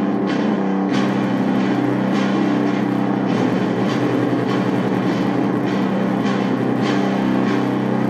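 Rock music led by an electric guitar played on a Stratocaster-style solid-body, going on without a break at a steady level.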